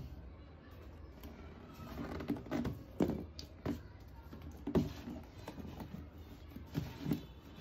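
Handling noise from sneakers and a cardboard shoebox being moved and lifted on a table: a scatter of soft knocks and rustles about a second apart.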